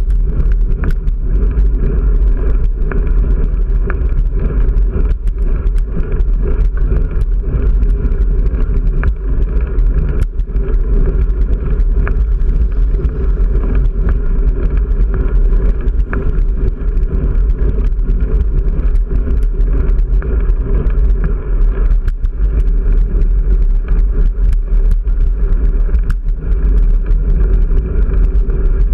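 Bicycle-mounted action camera picking up a heavy, continuous rumble and many small rattling knocks as the bike rolls over rough, broken road surface. The vibration is strong enough to shake the camera mount.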